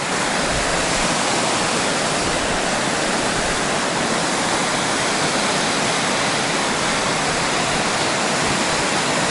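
Water rushing steadily over a reservoir weir, a loud, even roar of white water that does not change.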